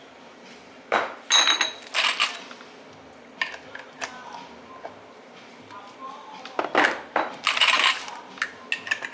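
Metal kitchenware clattering and clinking in two bursts, about a second in and again around seven seconds in, some strikes with a short metallic ring. Lighter ticks fall in between.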